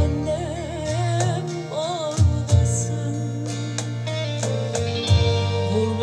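Turkish song playing: a woman's voice sings with a wide vibrato over a steady low bass line, and several sharp drum hits come through the music.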